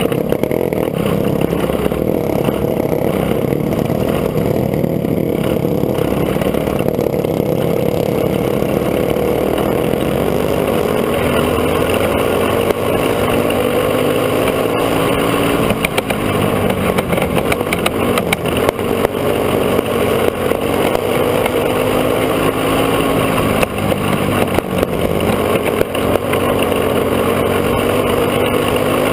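Dirt go-kart engine heard from on board at racing speed, its pitch rising and falling over and over as the throttle opens on the straights and backs off into the turns.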